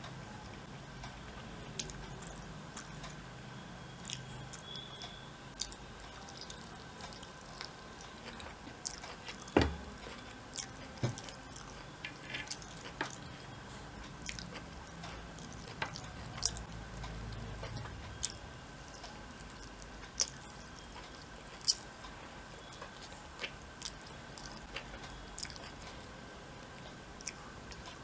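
A person chewing food close to the microphone, with wet mouth smacks and scattered soft clicks; one louder click comes about ten seconds in. A faint steady tone hums underneath.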